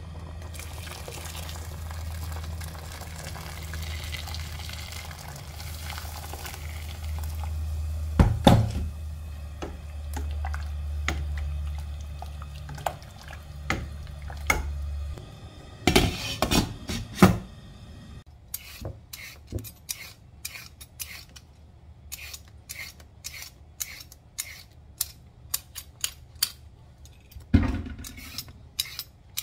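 A plastic spatula stirring a thick beef stew in a stainless steel pot, over a steady low hum, with a few knocks against the pot. A brief clatter follows, then a hand peeler scraping a raw carrot in short strokes about twice a second.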